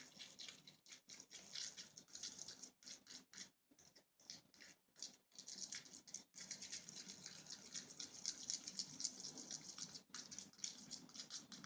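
Homemade slime being mixed, a faint run of quick, irregular sticky crackles and wet squishes with short pauses between.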